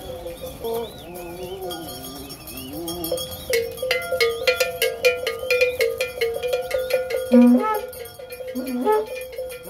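Hand-struck metal bells or gongs ringing in a rapid, busy rhythm, starting a few seconds in, over a group of people singing and calling out.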